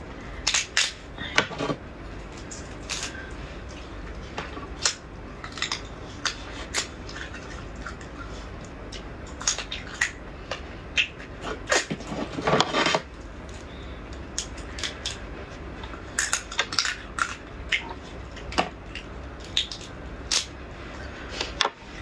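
Crab shell and legs being cracked and pulled apart by hand: a scattered series of sharp cracks and crunches, with a longer run of crunching about twelve seconds in.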